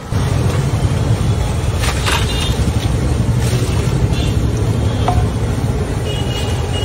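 A steady low mechanical rumble throughout, with a few sharp clinks of aluminium pots and ladles against each other about two, three and a half and five seconds in.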